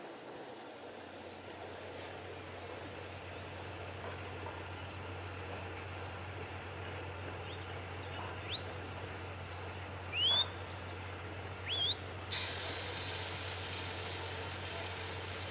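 Outdoor ambience: birds giving short chirps that glide up and down, the loudest a few rising calls about two-thirds of the way through, over a steady high drone and a low hum. Near the end a rushing hiss comes in and holds.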